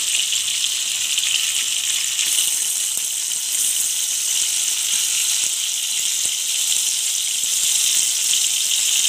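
Masala-coated fish steaks shallow-frying in oil in a kadai, a steady sizzle. The pieces have been turned and are frying on their second side over a low flame.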